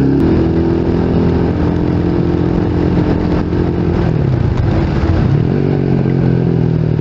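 Rusi Sigma 250 motorcycle engine running under way over a steady hiss of wind and road noise. About four seconds in, the revs drop, then rise again a second later.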